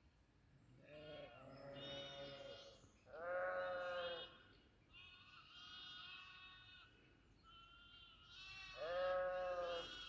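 Several goats bleating, with overlapping calls at different pitches; the loudest calls come about three seconds in and again about nine seconds in.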